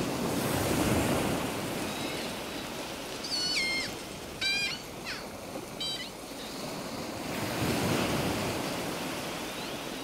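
Sea waves washing on a beach, a steady surf hiss that swells near the start and again around eight seconds in. Seagulls call about four times in the middle, short cries, the first falling in pitch.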